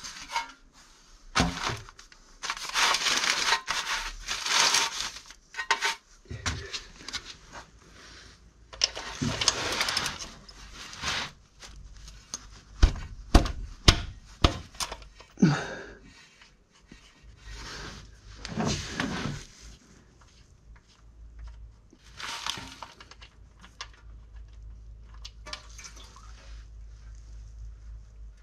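A metal oil drain pan scraping and rustling over newspaper as it is pushed into place under the engine, then a few sharp ratchet clicks as the oil drain plug is loosened, followed by quieter handling while the plug is turned out by hand. A low steady hum runs underneath in the second half.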